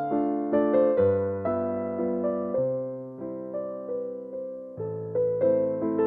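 Background music: a gentle piano melody over a bass line, notes struck and fading at an even pace.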